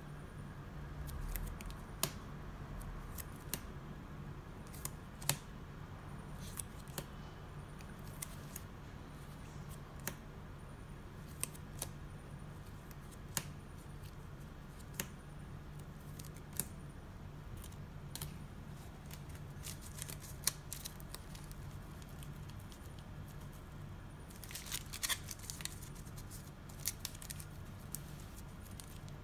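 Sleeved trading cards being handled one at a time, each card laid down or slid off the stack with a sharp plastic click every second or two, over a steady low hum. Near the end a quicker run of clicks comes as the deck is fanned out.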